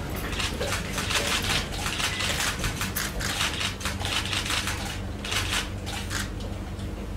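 A small audience clapping, a dense patter of claps that thins out near the end, over a steady electrical hum.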